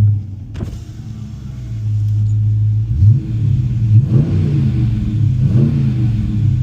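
Dodge Challenger R/T's 5.7-litre HEMI V8 idling and revved in three short blips, with a K&N drop-in air filter fitted; the intake gives more of a swooshing sound as it pulls in more air.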